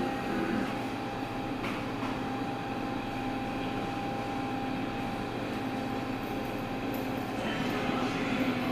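Steady background hum, a machine-like drone with a faint constant tone above it.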